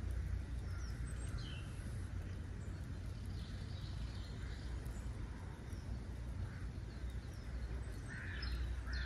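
Birds calling, the loudest calls near the end, over a steady low rumble.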